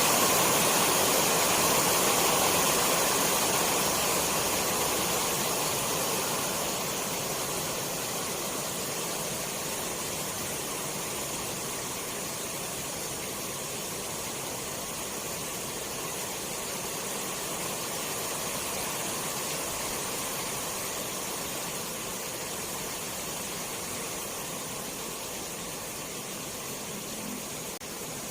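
Steady rain falling, an even hiss. It grows gradually quieter over the first several seconds, then holds steady.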